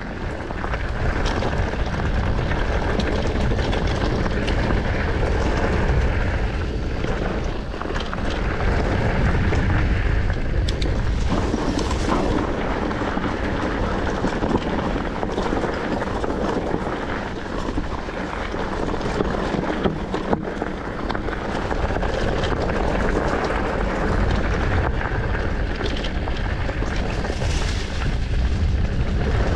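Mountain bike on the move: wind rushing over the camera's microphone and tyres rolling over a rough trail, with scattered clicks and knocks from the bike.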